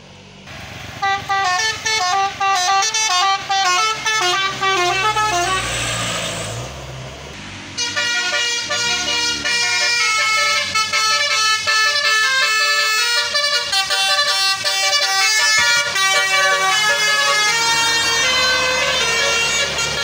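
Tour bus's Basuri telolet musical horn playing a tune of quick, changing notes, several tones at once. About halfway through, a broad rushing noise briefly takes over before the tune resumes and carries on.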